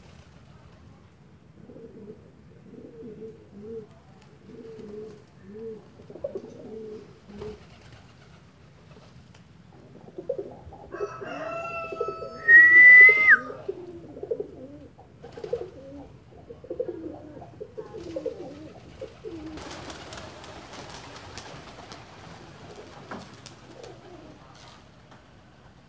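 Domestic pigeons cooing in repeated low, rolling phrases. About halfway through comes a loud two-note whistle, the loudest sound. Near the end there is a burst of flapping wings.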